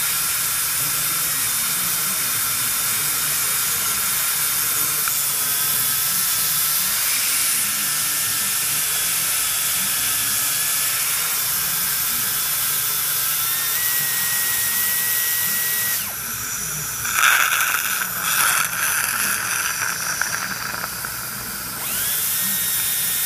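Dental handpiece running a yellow extra-fine Spacefile for interproximal enamel stripping on the lower front teeth: a steady high whine over a hiss, its pitch shifting a few times. About two-thirds of the way through the whine stops for several seconds and a louder, uneven hiss takes its place, then the whine starts again.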